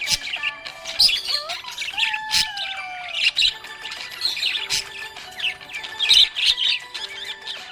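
Budgerigars chirping and chattering in a busy, unbroken stream of short calls, with sharper squawks mixed in and a few whistled notes gliding up and then down about one to three seconds in.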